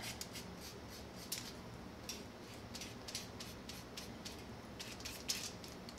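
Faint, quick, irregular scratching of a small paintbrush working paint onto a thin wooden cutout.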